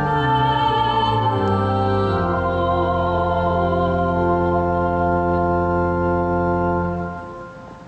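Organ holding the closing chord of a hymn, with a woman's sung last note wavering over it for the first couple of seconds. The chord is released about seven seconds in and fades out, then the sound cuts off.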